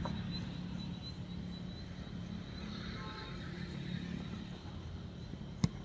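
Steady low hum of outdoor background noise with a faint, high, steady whine above it. A single sharp knock comes near the end.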